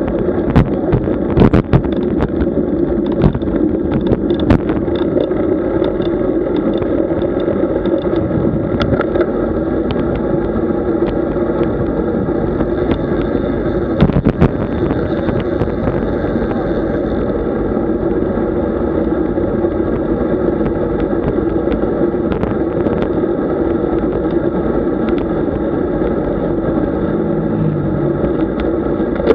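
Road bicycle riding at speed: a steady rumble of wind and tyres on the road, with rattling knocks from bumps, several in the first few seconds and one about halfway through.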